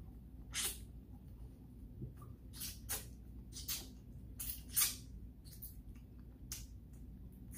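Close-miked wet mouth sounds of eating by hand: about ten sharp lip smacks and finger-sucking smacks at irregular intervals, the loudest a little under five seconds in.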